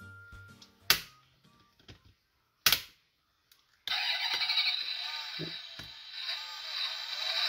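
Two sharp plastic clicks as the diecast Pagani Huayra model's doors are shut, then from about four seconds in the model's small built-in speaker plays an engine start-and-rev sound effect, thin and without any bass, wavering in level.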